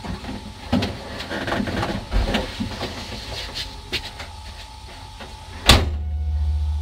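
Scattered clicks, knocks and rustling inside a stationary rally car's cabin. There is a loud sharp knock near the end, followed by a steady low hum.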